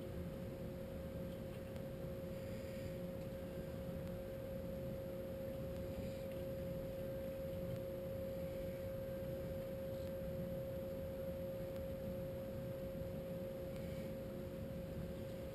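A steady humming tone at one pitch, with a fainter lower tone beneath it, over a low rumble.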